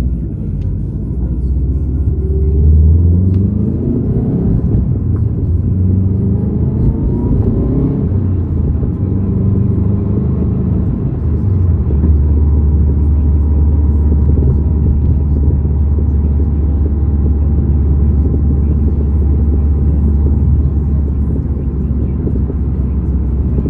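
A car on the move: engine and road rumble, rising in pitch as it accelerates over the first several seconds, then settling into a steady cruise from about halfway through.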